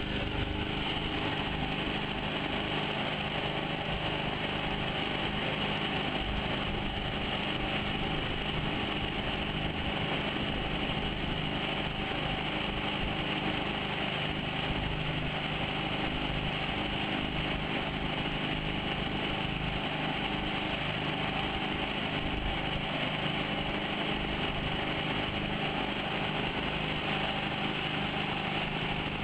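Bawad mud motor, a swamp-going outboard boat engine, running steadily at an even, unchanging speed.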